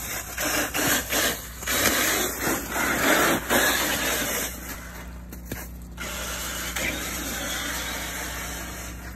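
Traxxas TRX-4 RC crawler's electric motor and gears running as its tyres churn through wet snow and slush. The sound comes in uneven surges for the first few seconds, then runs steadier and a little quieter.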